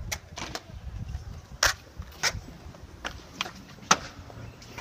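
A BMX bike being ridden: a run of sharp knocks and clacks, two of them loudest (about one and a half and four seconds in), over a low rumble of tyres rolling.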